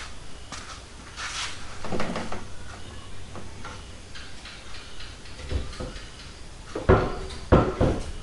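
Workshop handling noises: scattered knocks and clatter of parts and tools being moved, with two louder clunks near the end.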